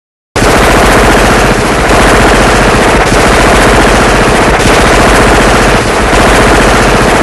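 Machine gun firing a long stream of rapid automatic fire, starting abruptly about a third of a second in and continuing without a pause, loud throughout.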